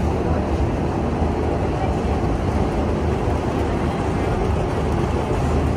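Steady low engine rumble and tyre noise of a moving bus on wet roads, heard from inside the cabin.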